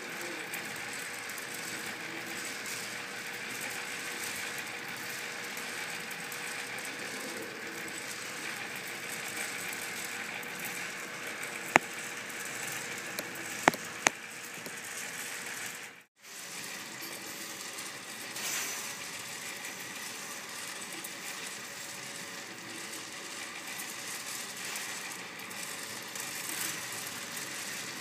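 Small electric motor turning the kinetic glass sculpture's turntable base by a drive cord, running with a steady mechanical rattle. Three sharp clicks near the middle, and the sound drops out briefly just past halfway.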